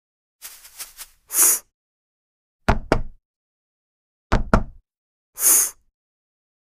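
Knocking on a front door: two quick knocks about three seconds in, then two more about a second and a half later. A short hissing burst of noise comes before the first knocks and another after the last.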